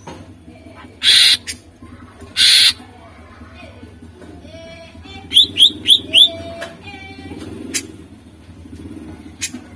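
Cucak ijo (greater green leafbird) singing: two loud, harsh rasping bursts in the first three seconds, then four quick sharp whistled notes just past the middle, with softer low gliding notes in between, over a faint steady hum.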